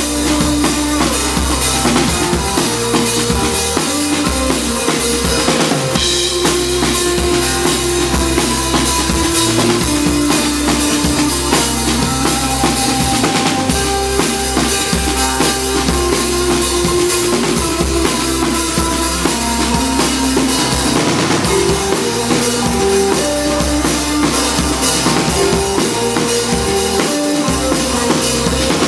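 Live rock band playing: a drum kit beating steadily under held, changing electric guitar notes.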